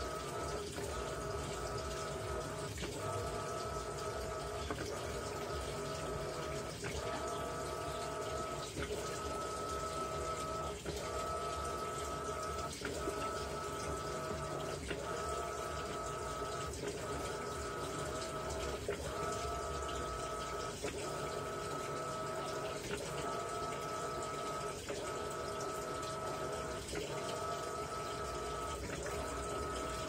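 Electrolux LAI17 17 kg top-load washing machine agitating a load of towels in water: a steady motor hum that breaks off briefly about once a second, over water sloshing.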